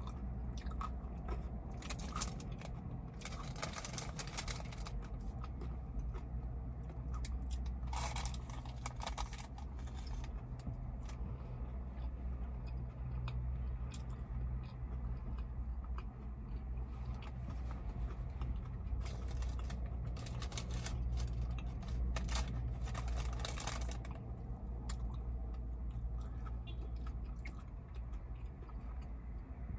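Close-up chewing and biting of fast food held in a paper sleeve, coming in irregular bursts of clicky mouth and bite sounds, over a steady low hum inside a car cabin.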